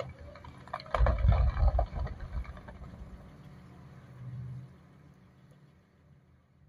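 Open-pit mine blast going off: a sudden deep boom about a second in, then a rumble with several close peaks over about a second that dies away over the next few seconds.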